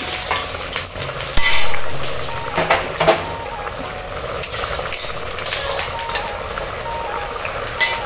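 Pork sizzling as it fries in a stainless-steel wok while a metal spatula stirs it, scraping and clinking against the pan. The sizzle is steady, with the loudest scrapes about a second and a half in and again around three seconds in.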